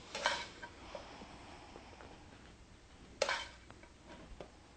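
Faint kitchen handling: a spoon scraping sautéed beef and onions out of a frying pan onto a pizza, two brief scrapes about three seconds apart, with a few light clicks between.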